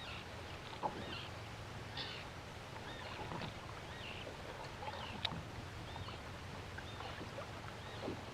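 Water lapping against a small boat's hull on calm water, with scattered faint high chirps and a couple of light knocks.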